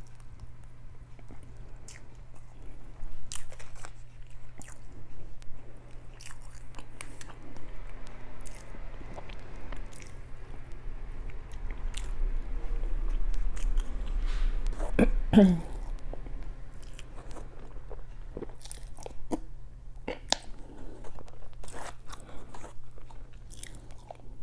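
Close-miked eating: chewing and biting with many short wet mouth clicks and smacks, over a steady low refrigerator hum. About fifteen seconds in comes the loudest sound, brief and sliding quickly down in pitch.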